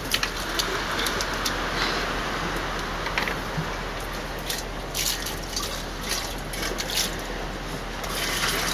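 Water poured from a plastic bowl and a bucket into a large orange plastic container, splashing and dripping, with scattered short knocks and splashes.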